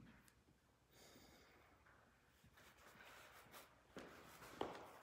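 Near silence: room tone with faint rustling, and a short soft thump near the end.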